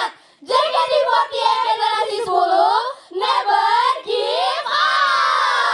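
Several high female voices singing together without accompaniment, in long gliding phrases with brief breaks near the start and about three seconds in.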